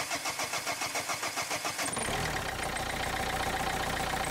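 Renault 1.5 dCi four-cylinder common-rail diesel being cranked by the starter, a rhythmic chugging of about five or six beats a second, then catching about two seconds in and settling into a steady idle. It idles without the earlier vibration now that two of its four injectors have been replaced.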